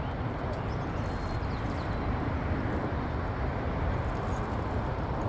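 Steady outdoor background rumble with no distinct events, heaviest in the low end.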